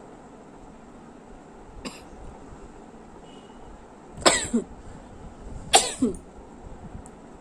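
A woman sneezing twice, about a second and a half apart, each a sudden sharp burst with a falling voiced tail. A shorter, fainter sharp sound comes near two seconds in. The sneezes are brought on by tickling the inside of her nose with a thin broomstick straw.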